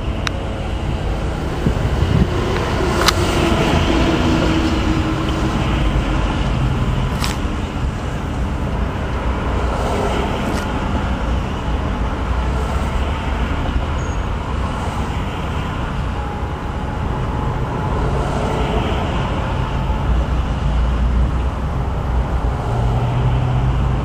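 Steady road traffic: cars and other vehicles driving past, a continuous low rumble of engines and tyres.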